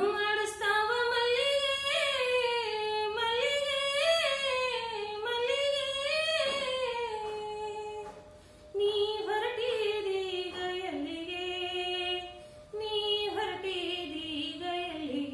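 A woman singing a Kannada bhavageete (light poetry song) unaccompanied, in long phrases of gliding, ornamented notes, with a breath break about eight seconds in and another near twelve and a half seconds.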